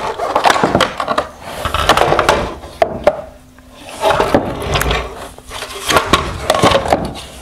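Hard plastic parts of a 2021 Nissan Rogue LED headlight clattering, clicking and scraping as the inner reflector assembly is pulled free of its plastic housing, with knocks against a wooden workbench. There is a short lull about halfway through.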